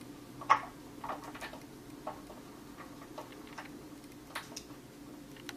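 A cat eating watermelon: irregular small wet clicks of chewing, the loudest about half a second in.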